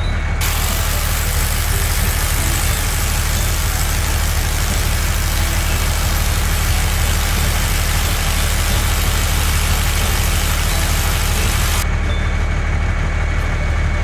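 Cartoon construction-vehicle engine sound effect: a steady low engine rumble with a loud hissing noise layered over it, which cuts off about twelve seconds in and leaves the rumble running on its own.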